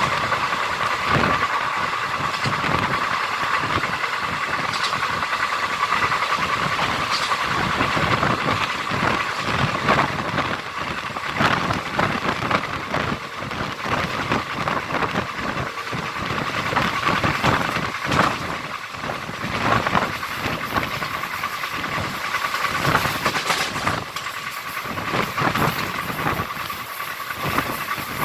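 Siddhaganga Intercity Express running: a steady rush of wind and wheels on rails, broken by irregular knocks and clatter from the track.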